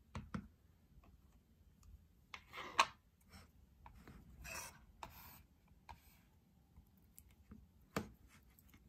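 Quiet handling sounds: a clear plastic slime tub clicks and scrapes as it is handled and set down on a hard tabletop, with a few short rustles. Near the end, a sharp click as fingers press into the slime.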